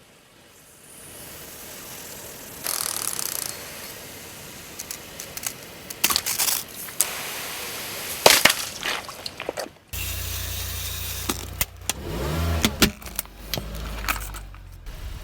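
A car's tyres rolling over and crushing objects: a series of sharp cracks, crunches and pops, the loudest about eight seconds in. From about ten seconds in, the car's engine is heard running, its pitch rising and falling around twelve seconds.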